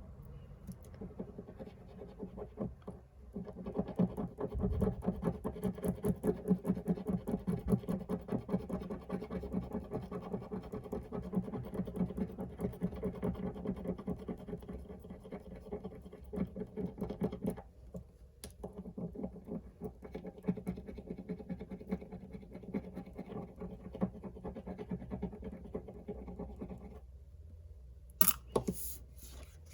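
A coin scratching the coating off a scratch-off card in quick, repeated strokes, with a short pause a little past the middle and a few sharp clicks near the end.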